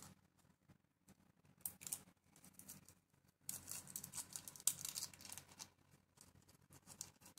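Small clear plastic parts bag crinkling and rustling as fingers handle and open it, in an uneven run of crackles that is loudest about halfway through.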